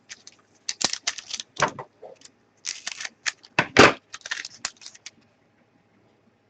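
Trading cards being handled and sorted by hand: a quick, irregular run of light clicks and brushing swishes as cards are flipped and slid onto piles, stopping about five seconds in.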